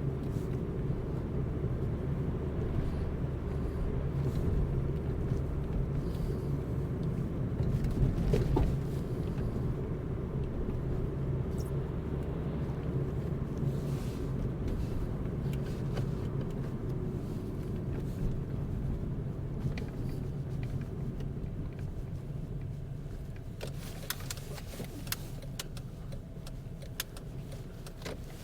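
Car driving: a steady low engine and road rumble, easing off near the end as the car slows, with a few light clicks.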